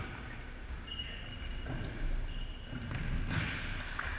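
Futsal in a large sports hall: ball thuds and players' shoes giving short, high squeaks on the wooden court, echoing in the hall.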